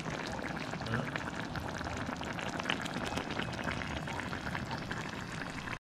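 Fish stew simmering in a coconut sauce in a metal pan over a wood fire: a steady bubbling and sizzling with many small pops.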